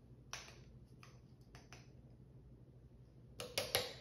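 A few small clicks and taps of a spice jar and measuring spoon being handled while chili powder is measured out, the loudest three or four coming close together near the end.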